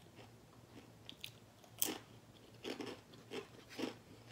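Someone biting and chewing crispy sweet potato chips: one sharp crunch about two seconds in, then a run of softer chewing crunches.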